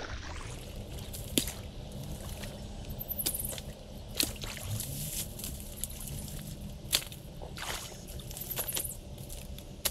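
Creek water sloshing and trickling as a beaver dam is worked, broken by about five sharp cracks or knocks.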